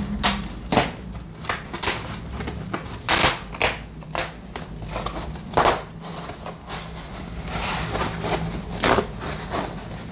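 White polyethylene foam wrap being pulled open by hand around a potted plant: irregular rustling and crinkling, with a few sharper crackles.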